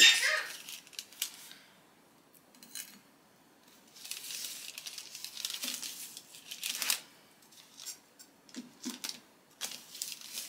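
Baking parchment rustling and scraping under a baked sheet pancake as a square is lifted off it onto a plate. A sharp clack at the very start is the loudest sound, and scattered small clicks follow near the end.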